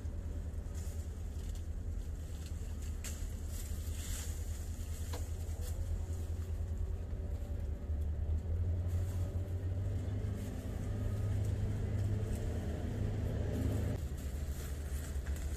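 Low, steady rumble of a running engine that swells louder over the middle stretch, with a few faint clicks about three to five seconds in.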